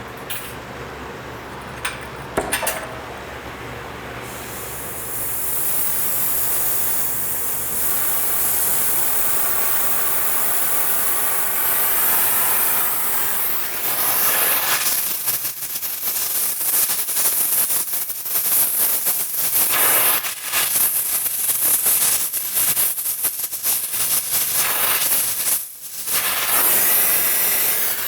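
Gas brazing torch flame hissing while a refrigeration pipe joint is brazed. It builds from about four seconds in and turns into a louder, fluttering rush about halfway through, with a brief drop near the end. A few metal clinks come near the start.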